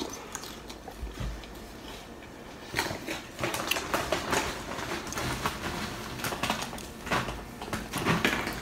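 Close-miked eating sounds: chewing and wet mouth noises as loaded nachos are eaten off a metal spoon, with many quick clicks and smacks that get busier from about three seconds in.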